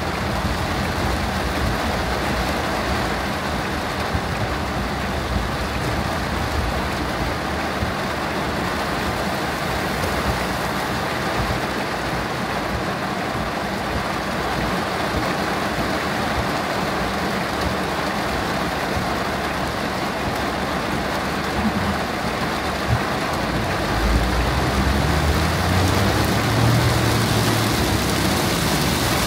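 Heavy downpour drumming on a car's roof and windscreen, heard from inside the moving car over a steady hum of road and engine noise. It grows a little louder over the last few seconds.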